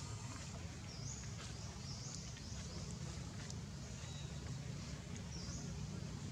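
Outdoor ambience: a steady low rumble with a few short, high-pitched chirps, several close together in the middle and one near the end.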